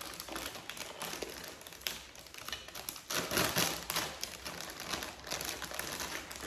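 Packaging crinkling and rustling as items are handled and unwrapped, with many small clicks and taps; it swells louder briefly a little over three seconds in.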